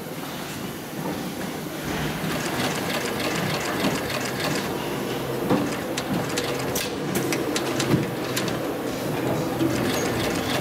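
Hightex 204-370SP heavy-duty post bed sewing machine with triple feed, running steadily and stitching through thick leather with heavy thread: a rhythmic run of needle strokes with many sharp clicks.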